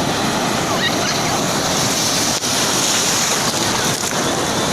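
Ocean surf breaking and rushing steadily, with wind buffeting the microphone.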